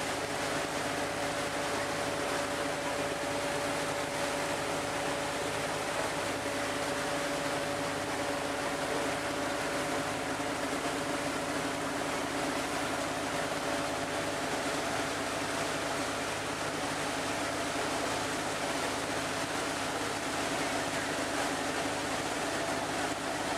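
A river boat's engine running steadily with a constant drone, over the rushing hiss of water churned up by the hull and wake. The engine's tone edges slightly higher in the second half.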